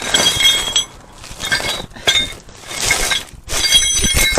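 Metal parts clanking together several times, each clank ringing briefly with a bright metallic tone.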